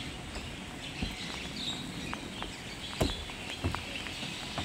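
A small child's footsteps on playground steps: a few separate knocks as each step is climbed. Birds chirp over a steady outdoor hiss.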